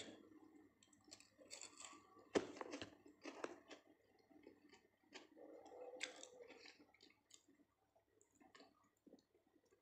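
Faint close-up chewing of crispy breaded fried chicken nuggets, with scattered crunches and wet mouth clicks. One sharp crunch comes about two and a half seconds in.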